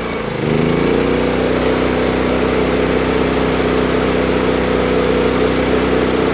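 Briggs & Stratton P3000 inverter generator's engine sagging briefly, then revving up within the first second as a 1500-watt hairdryer load comes on. It then runs steadily at the higher speed under load, over a steady hiss from the hairdryer.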